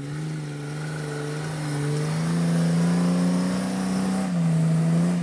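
A 4WD wagon's engine revving hard under load as it drives through soft sand, its revs climbing over a couple of seconds and then holding, with a slight dip about four seconds in. The spinning tyres spraying sand add a hiss.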